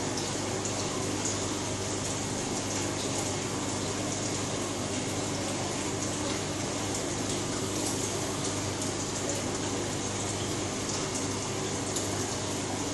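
Steady rush and trickle of water circulating through aquarium filtration, with a steady low hum beneath it.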